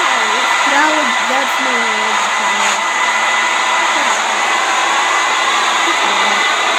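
A loud, steady rushing noise with a thin, high, steady whine running through it, and a faint voice rising and falling beneath it.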